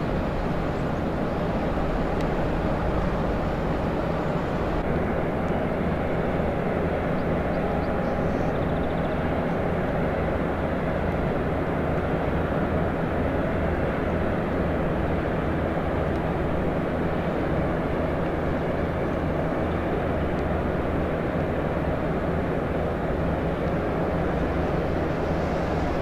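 Steady low drone of a tugboat's engine as it works a log boom, with an even wash of outdoor noise.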